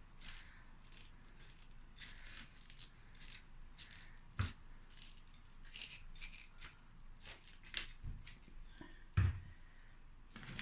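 Potting soil being stirred and mixed by hand, a crumbly rustling and crunching. A few dull thumps come about four, eight and nine seconds in.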